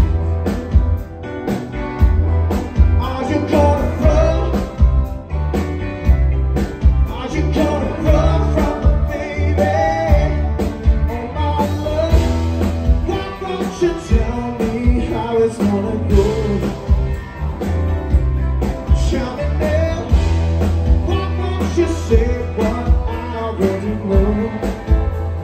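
Live rock-and-roll band playing at full volume, with upright piano, drums and electric guitar over a steady beat.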